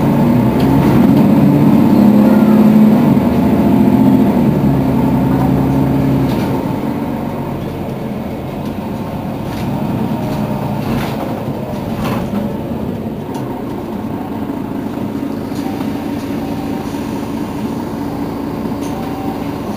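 Mercedes-Benz Citaro Facelift city bus's diesel engine running while the bus stands at the stop: loud and swelling for the first few seconds, then settling to a steadier, quieter idle. A few sharp clicks sound around the middle.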